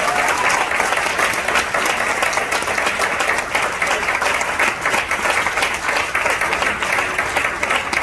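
Audience applauding: many people clapping in a dense, steady wash of claps.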